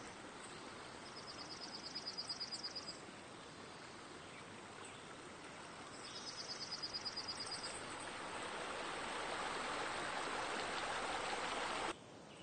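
Outdoor nature ambience: a steady hiss of running water, with a rapid, high-pitched trill twice, each lasting a second or two. Near the end the water grows louder, then cuts off suddenly.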